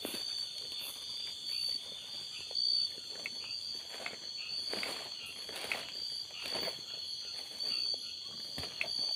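Steady high-pitched chorus of night insects such as crickets, one call pulsing about once a second, with footsteps on the forest floor at a walking pace.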